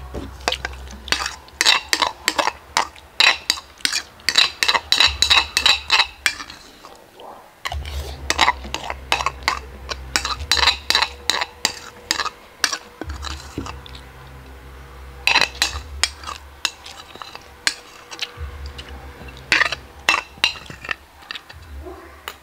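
A metal spoon clinking and scraping against a ceramic bowl as rice is stirred and scooped. The clinks come in quick runs of several a second, in four bursts with short pauses, the longest in the first several seconds.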